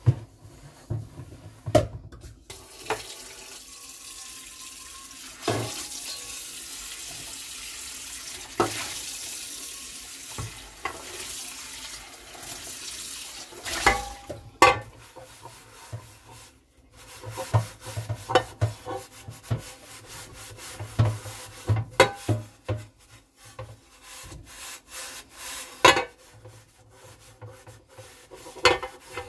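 Kitchen tap running into a stainless steel sink while a stainless pot is rinsed, with sharp knocks of metal against the sink. The water stops a little over halfway through, after which a cutting board is scrubbed with a knitted scrubber amid clattering knocks of dishes and pot.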